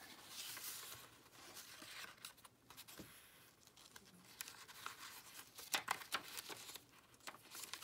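Paper pages of a handmade journal rustling and crinkling as they are handled and turned, with a few light ticks of paper edges about two-thirds of the way in.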